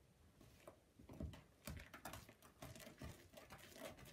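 Faint, irregular clicks and taps of a utensil against a mixing bowl as a butter, sugar and flour mixture is stirred.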